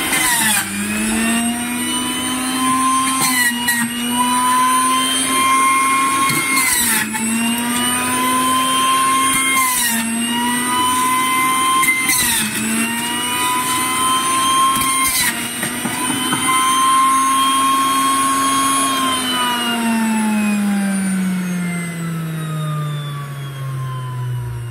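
Electric juice extractor motor running with a high whine while pineapple pieces are pushed down its feed chute. About six times the whine dips briefly in pitch with a knock as fruit goes in. Near the end the motor is switched off and the whine falls steadily as it spins down.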